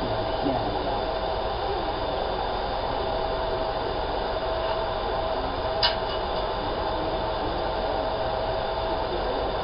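Laser marking machine at work: a steady fan-like rush with a constant hum. One short sharp click about six seconds in.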